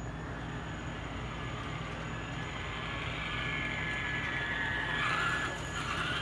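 Whine of a Traxxas Rustler RC stadium truck's electric motor and gears as it drives on the track, growing louder in the second half and loudest about five seconds in, over a steady low hum.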